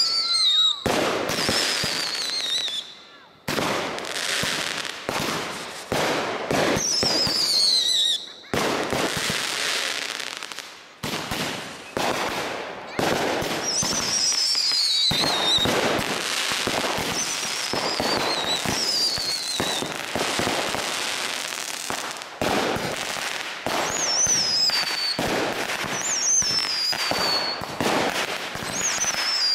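Aerial fireworks going off in rapid succession: a near-continuous string of bangs and crackles, with repeated warbling whistles that fall in pitch.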